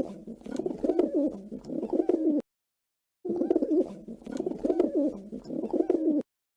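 Dove cooing: two bouts of low, wavering coos, each about three seconds long and separated by a brief silence.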